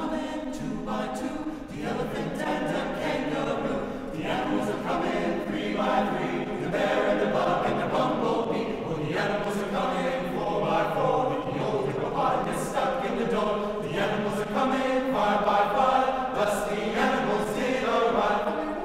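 Men's chorus singing a cappella in several-part harmony.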